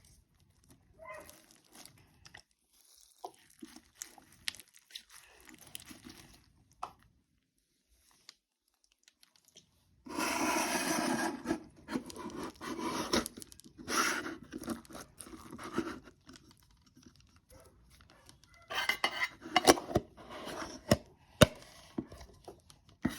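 Beaded slime being worked by hand, stretched, squished and pulled apart, in irregular bursts of tearing noise. It is louder from about ten seconds in and again near the end. The slime rips easily and sheds its beads.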